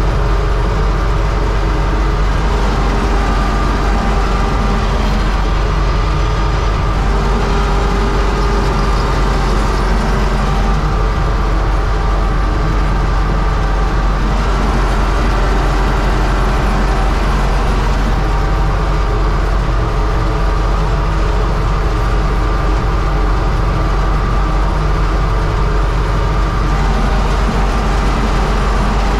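Universal 650 (U650) tractor's four-cylinder diesel engine running loud and steady, pulling a three-furrow plough.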